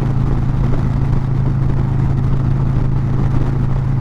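Harley-Davidson Road Glide ST's Milwaukee-Eight 117 V-twin running steadily at freeway cruise of about 90 mph, its low drone mixed with constant wind and road noise.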